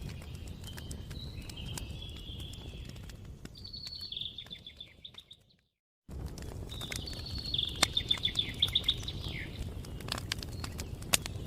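Campfire crackling with scattered sharp pops over a low steady rumble, while a songbird sings rapid trilled phrases. About five seconds in everything fades out to silence and cuts back in a second later, where the recording is spliced or looped.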